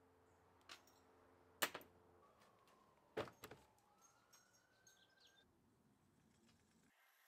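Near silence broken by a few sharp clicks: a light one, then two louder ones about a second and a half apart.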